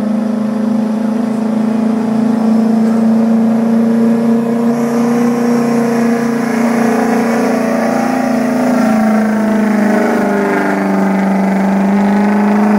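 Ford F-350's ProCharger-supercharged 6.0 Power Stroke diesel V8 held at high revs under full load while pulling a sled, a loud, steady drone. The pitch sags a little near the end, then the engine cuts off suddenly as the driver lets off.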